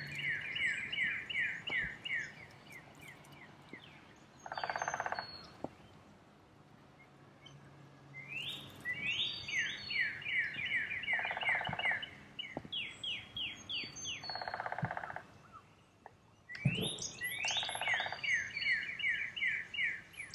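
Birdsong: a fast series of down-slurred whistled notes, several a second, sung in three bouts, with short lower buzzy calls in between.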